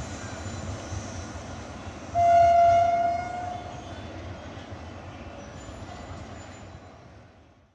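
GE WDG4G diesel locomotive hauling a train away, with its running rumble underneath and one loud horn blast of about a second, a couple of seconds in. The rumble then fades away to silence.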